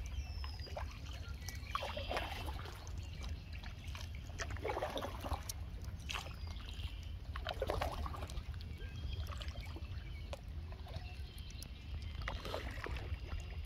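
Canoe paddle strokes in calm water, each a short swish and trickle, four or five over the stretch, over a steady low rumble.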